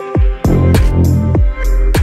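Electronic background music with a heavy deep bass and repeated drum hits that drop sharply in pitch.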